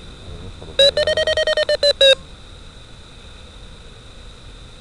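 DIY Arduino sailplane variometer beeping through a loudspeaker: a quick run of about ten short beeps, roughly eight a second, lasting just over a second. The pitch rises slightly, which signals the glider climbing in lift. A faint steady high whine from the video downlink's audio runs underneath.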